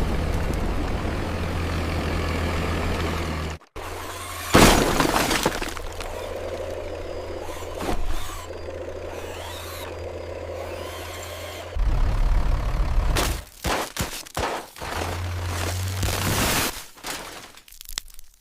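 Crash and breaking sounds of model cars being smashed over a steady low engine drone. The loudest smash comes about four and a half seconds in, with more crunches and scraping later, and the sound turns choppy near the end.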